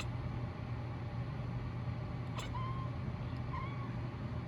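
Tabby cat chirping at birds: a few short, quick chirps in the second half, over a steady low hum.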